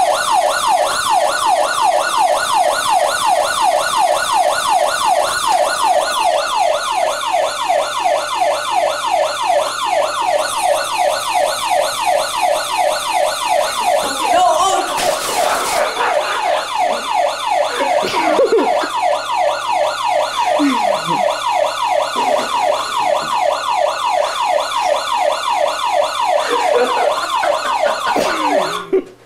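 Fake fire alarm siren sounding loudly, a rapidly repeating rising whoop, about three sweeps a second, cutting off suddenly near the end. About halfway through, a brief rush of noise rises over it.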